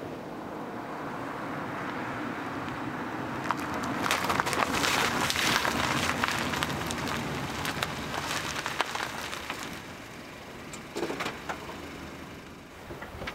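Honda Civic sedan driving up and past, its tyres crunching and crackling on rough asphalt. The sound is loudest from about four to nine seconds in, then fades as the car rolls to a stop.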